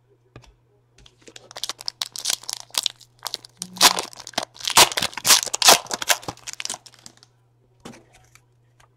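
A baseball card pack's wrapper being torn open and crinkled by hand: a run of tearing and crinkling starting about a second in, loudest in the middle, dying away after about seven seconds into a few light clicks.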